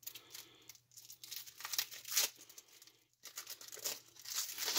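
Plastic shrink-wrap being torn open and peeled off a deck of game cards: irregular crinkling and crackling in short spurts.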